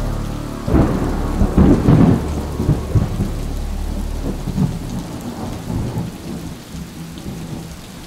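A thunderclap breaks about a second in, with a few heavy cracks, then rumbles and fades away over several seconds over a steady hiss of rain.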